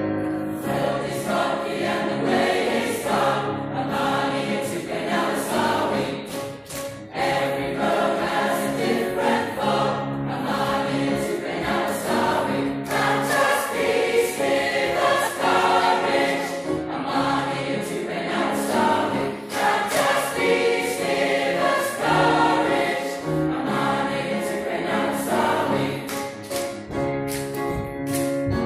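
A mixed choir of men's and women's voices singing together in harmony.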